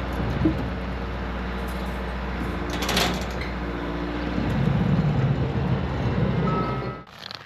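A vehicle engine running steadily with a low hum, with a sharp clank about three seconds in. The engine sound cuts off suddenly near the end, leaving only faint clicks.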